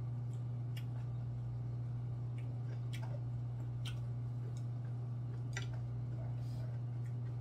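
A man chewing food, with scattered small clicks and smacks, over a steady low hum.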